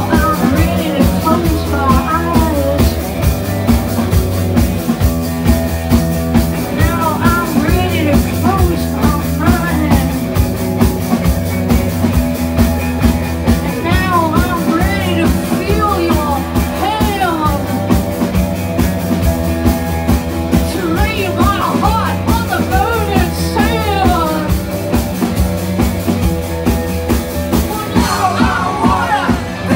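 Live garage-punk rock band playing: a steady driving drum beat with electric guitars, and a singer singing into a microphone over it.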